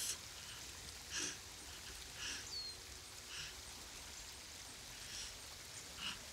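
A person's short, sharp breaths, one every second or so, over a faint steady background; a brief high chirp about two and a half seconds in.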